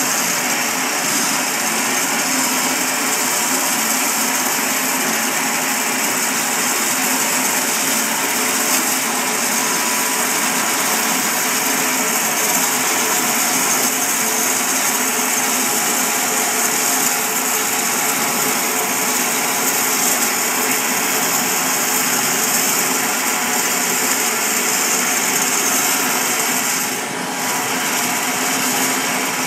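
Small bandsaw mill's blade sawing lengthwise through an Oregon white oak log: a loud, steady, high-pitched sawing noise, with a brief dip near the end.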